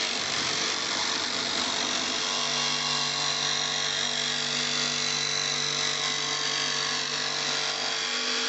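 Rockwell Blade Runner X2 tabletop jigsaw running and cutting through a wooden board, a steady motor hum with the rasp of the reciprocating blade. A lower tone joins the hum about two seconds in and drops away near the end.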